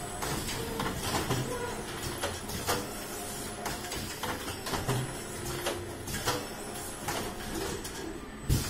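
KTK automatic screen printing machine running, a steady mechanical hum with frequent sharp clicks and knocks at uneven intervals.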